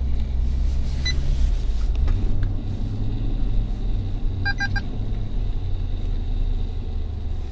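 2017 Nissan Titan pickup's engine and drivetrain rumbling low, heard from inside the cab as the truck crawls up a dirt incline. A single short beep about a second in and a quick run of about four short beeps halfway through: the parking distance sensor alert picking up an obstacle.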